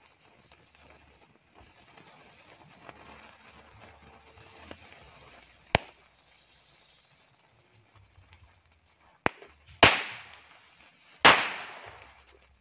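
Small firecrackers going off one at a time as a burning fuse reaches them: a sharp bang about six seconds in, then three more in the last few seconds, the last two the loudest, over the faint hiss of the burning fuse.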